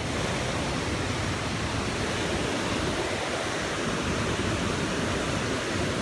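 Fast-flowing river rushing over rocks and rapids: a steady, even rushing noise.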